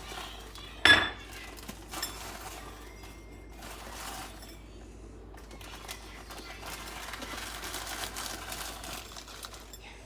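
Kitchen utensils and a metal pot clinking while noodles are cooked. There is one loud, ringing clink about a second in, then lighter clinks and steady rustling.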